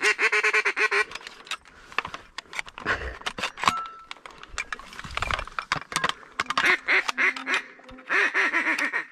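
Ducks quacking in quick runs of short, repeated calls, with a few sharp clicks and knocks in between.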